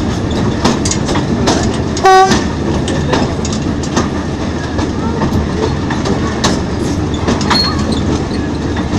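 Diesel locomotive 040-DA-073 under way, with steady running noise and clicks from the wheels over the track. About two seconds in it gives one short blast on its horn, the warning sounded for an 'S' whistle board beside the line.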